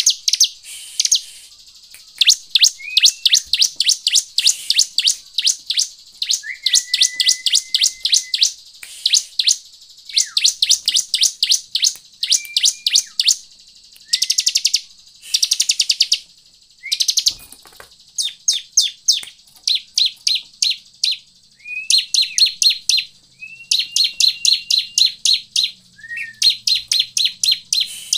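Bar-winged prinia (ciblek) singing: rapid trills of sharp, high chirps in bursts of a second or two, with brief pauses between them. Some phrases open with a short, lower whistled note.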